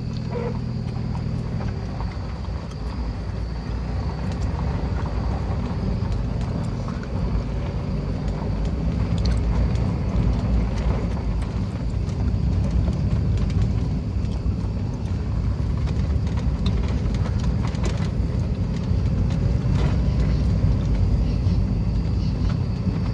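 Mazda Miata NA's four-cylinder engine running as the car is driven, with a misfire that the owner is dealing with.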